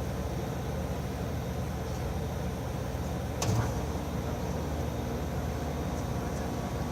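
Steady low background rumble, with one short knock about halfway through.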